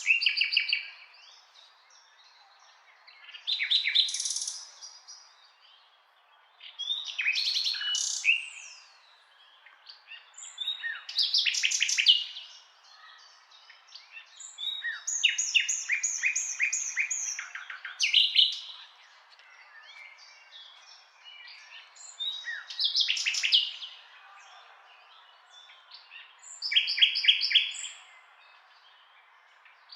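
Small songbird singing in short chirping, trilling phrases, each about a second long, repeated every few seconds.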